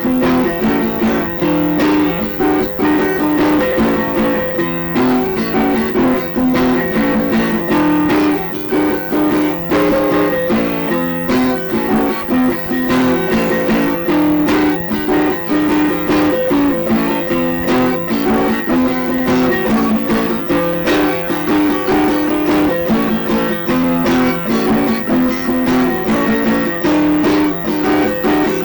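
Music: plucked guitar notes in a busy, repeating pattern over a steady low held tone.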